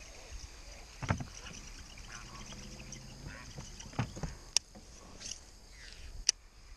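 Baitcasting reel and rod being handled: a few soft knocks, then two sharp clicks about a second and a half apart in the second half.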